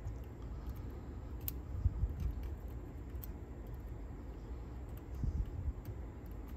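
A few faint, sparse clicks of a small metal tool picking at the tape transport mechanism of a Sony TC-K890ES cassette deck, over low handling rumble with soft bumps about two seconds in and again after five seconds.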